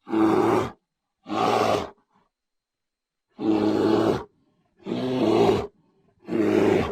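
Bear roaring: five short roars, each under a second long, with silent gaps between them.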